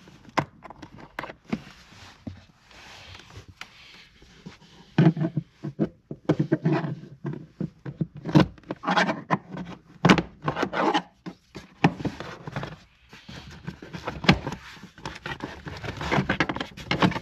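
Plastic clips and push pins being pried out of a 1999 Honda Civic's passenger-side plastic kick panel, and the panel pulled loose: irregular clicks, snaps and scraping that come and go.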